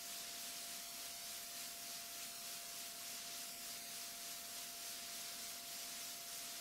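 Steady hiss with a constant mid-pitched whine under it, unchanging throughout: the background noise of the recording chain, with no distinct event.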